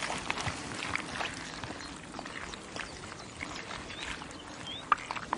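Wild boar splashing and rooting with their snouts in shallow muddy water: scattered small splashes and sloshes, a couple of short high chirps about four seconds in, and a sharp click about five seconds in.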